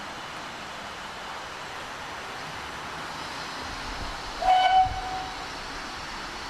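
GWR 57xx pannier tank steam locomotive's whistle giving one short toot, about half a second long, over a steady rushing background noise.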